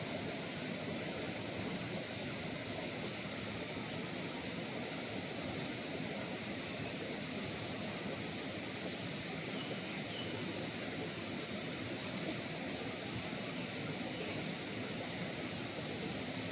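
Steady outdoor background noise with no distinct source, broken by two brief groups of three faint high chirps, about half a second and about ten seconds in.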